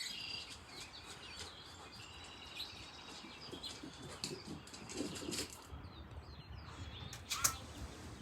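Birds chirping outdoors over a steady low background rumble, with scattered sharp clicks and taps; one stands out about seven seconds in.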